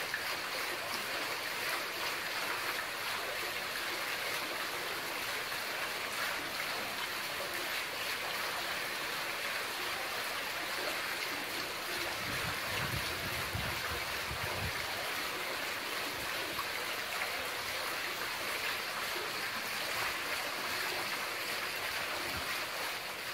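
Water running steadily from a mosque ablution fountain (şadırvan) into its basin. A low rumble joins it for a few seconds midway.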